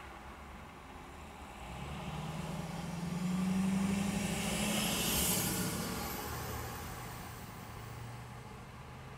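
A large pickup truck drives past the parked car, its engine and tyre noise swelling over a couple of seconds and fading away again, over a low steady hum of traffic.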